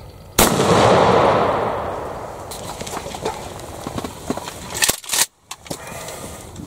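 A single shotgun shot fired at a wild turkey from inside a ground blind, about half a second in, with a long rolling echo that fades over a second or two. It is followed by scattered clicks and knocks.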